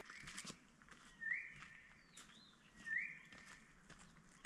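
A bird calling repeatedly: a short note that slides up and then holds, about every second and a half, three times. A single higher, arching call comes once near the middle.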